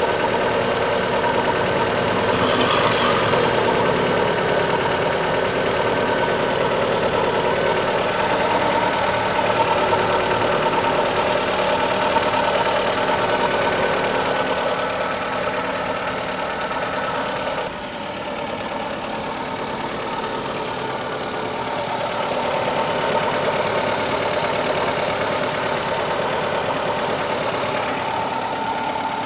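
Fiat Stilo 1.6 16v four-cylinder petrol engine running steadily near idle, carrying the unexplained strange noise the owner is asking about. It gets somewhat quieter about two-thirds of the way through, then picks up again.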